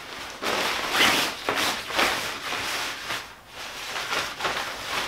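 Cloth fishing-rod bag rustling and swishing in irregular surges as rod sections are handled and pulled out of it.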